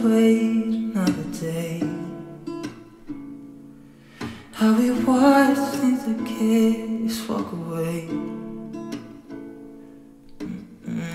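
Background pop song: strummed acoustic guitar with a sung melody, one held vocal phrase at the start and another from about four and a half seconds in.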